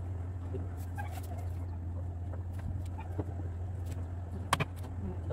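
Particleboard cabinet panels being handled during assembly: faint scattered clicks and one sharp knock about four and a half seconds in, over a steady low hum.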